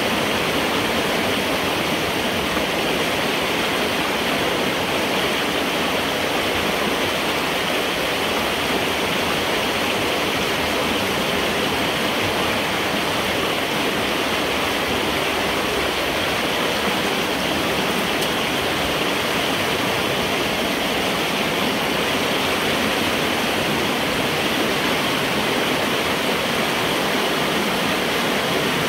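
Water rushing steadily through a culvert pipe as a beaver dam is pulled apart to drain the flood, heard from inside the pipe.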